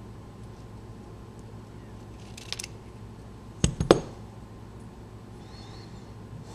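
Small metal parts of a Mul-T-Lock lock cylinder being handled during disassembly: a brief scrape, then a quick cluster of three or four sharp metallic clicks about halfway through.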